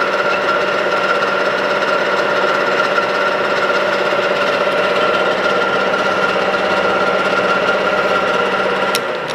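Geared pillar drill running at a steady speed with a constant hum and whine. A sharp click near the end as it is switched off, and the machine starts to run down.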